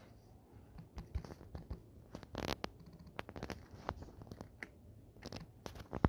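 Irregular faint taps and clicks of fingertips on a smartphone touchscreen while typing, with a brief scratchy rustle of handling about two and a half seconds in.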